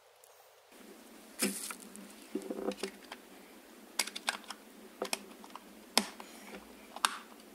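Small plastic junction box being closed up under a cabinet: irregular light clicks and taps of plastic as the wire connections are pushed inside and the cover is pressed and snapped on.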